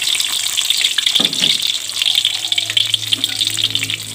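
Chopped shallots and garlic sizzling in hot oil in a wok: a steady, crackling fry as the spices are sautéed.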